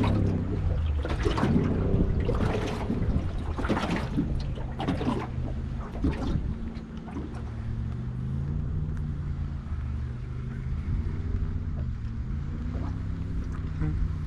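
Boat motor running steadily, a low hum whose pitch drifts slightly up and down, with gusts of wind on the microphone in the first few seconds.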